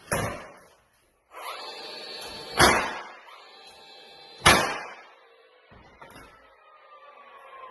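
Nails being driven through the face of a tongue-and-groove floorboard for surface nailing: three sharp strikes, about two seconds apart, each with a short ringing tail.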